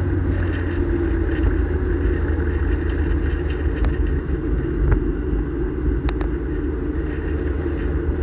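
Mazda MX-5 driving on an open road, heard inside the cabin: a steady low rumble of engine and tyre noise, with a few light clicks around the middle.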